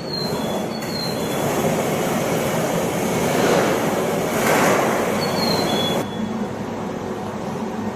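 A train running on rails, with a steady rumble that grows louder in the middle and drops off about six seconds in. Brief high wheel squeals are heard a few times.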